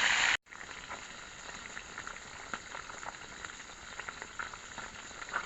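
Food frying in hot oil in a pan: a steady sizzle with small irregular pops and crackles. Less than half a second in, a louder hiss cuts off abruptly just before the sizzle begins.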